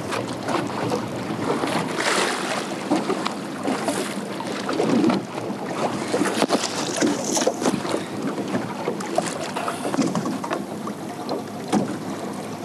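Wind buffeting the microphone, with water splashing and slapping against a kayak at sea in a steady crackle of short splashes.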